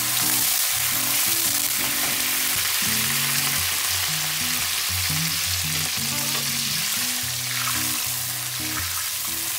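Pasta cooking water, just ladled into a frying pan of hot rendered bacon fat, sizzling and bubbling hard, easing off slightly near the end. Low background music notes run underneath.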